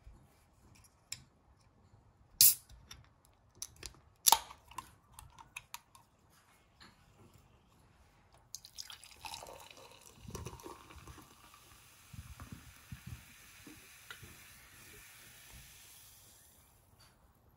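A can of Monster Energy drink cracked open by its pull tab, two sharp snaps a couple of seconds apart among smaller clicks, then poured into a glass mug: the carbonated drink gurgles and fizzes for about eight seconds, the fizz fading near the end.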